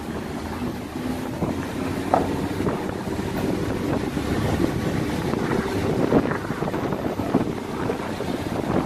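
Motorcycle engine running as it rides along a rough dirt road, with steady wind noise on the microphone.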